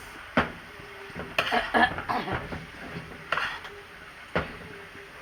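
A spoon knocking and scraping against a cooking pot as frying rice is turned over, with about five sharp clacks spaced a second or so apart.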